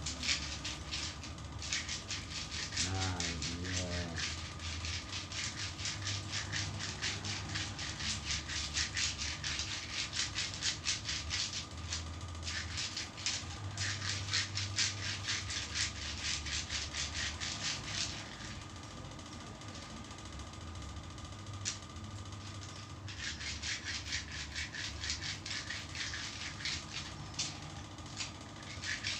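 Hands rubbing briskly over the sole and foot of a person being massaged: a rapid run of fine rubbing strokes on skin that stops for several seconds about two-thirds of the way through, then starts again.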